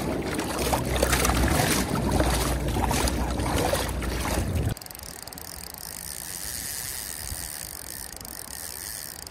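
River water sloshing and splashing into a plastic tote held down in the current. A little under halfway through it drops suddenly to the quieter steady rush of the flowing river.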